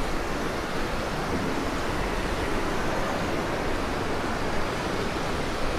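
Glacial meltwater river rushing in whitewater through a narrow rock gorge: a steady, even roar of fast water over rocks.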